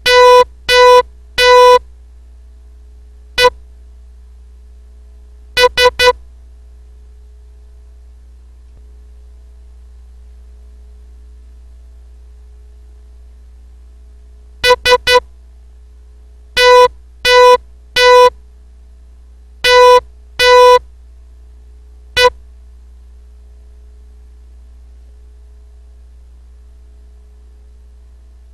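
Morse code practice tone, a steady beep near 500 Hz keyed in short dits and longer dahs and sent slowly with long gaps between letters. It spells the end of one word, O E S, and then the word SOME. The last letter ends a little past the middle, leaving only a faint steady hum.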